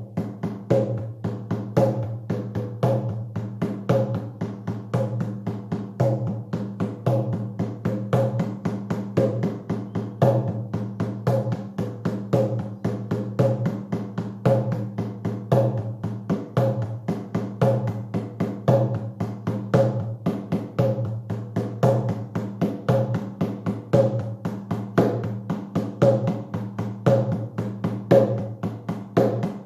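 A shamanic drum beaten in a steady, fast, even rhythm, with a slightly stronger beat about once a second. This is the monotonous drumming of a shamanic journey, used to induce a trance state.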